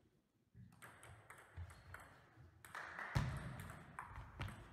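Table tennis rally: the celluloid ball clicking sharply off the rubber-faced bats and the table top in a series of irregular hits. The loudest strike, about three seconds in, comes with a heavy low thud.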